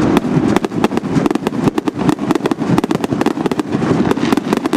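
Night fireworks display: a dense, unbroken barrage of sharp bangs and crackling reports, many a second, at a steady loud level.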